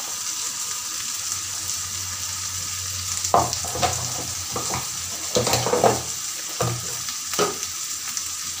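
Oil and vegetables sizzling in a non-stick wok, a steady hiss, with ground spices just added on top. A handful of short, sharp knocks or scrapes come between about three and seven and a half seconds in.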